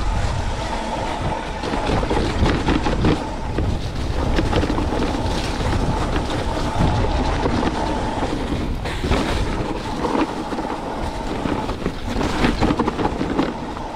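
Mountain bike riding fast down a dirt singletrack: knobby tyres rumbling over dirt and roots, with the bike rattling and clattering over the bumps and wind rushing over the camera microphone.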